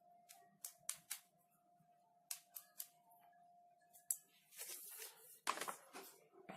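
Handling of a USB cable and its packaging: about eight sharp clicks and taps over the first four seconds, then rustling near the end.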